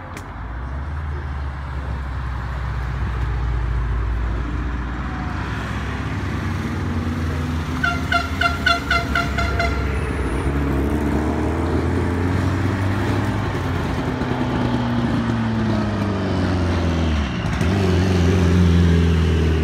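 Several rally cars, a Subaru Impreza and a Mitsubishi Lancer Evo among them, driving down the road in a line at low revs, their engine notes rising and falling and growing louder as they come close. About eight seconds in, a car horn gives a quick series of about eight short toots.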